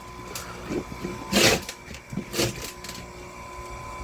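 A few short clunks and rattles from a chainsaw chain and electric chain sharpener being handled and adjusted by hand, the loudest about a second and a half in, over a faint steady hum; the grinder is not running.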